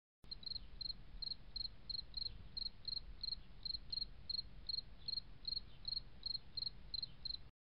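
Quiet chirping like a field cricket: short chirps at one high, steady pitch, about three a second, over a faint low hum. It starts and cuts off abruptly.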